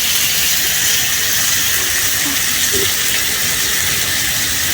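Chopped onion and potato frying in mustard oil in a kadai: a steady sizzle.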